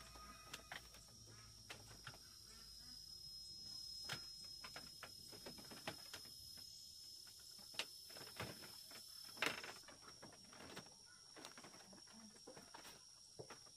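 Faint steady high-pitched insect drone, with scattered light clicks and rustles, the sharpest about nine and a half seconds in.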